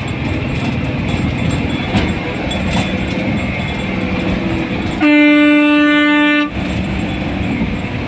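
A vehicle horn sounds once about five seconds in, one steady note held for about a second and a half, over the running engine and road noise heard inside the moving vehicle.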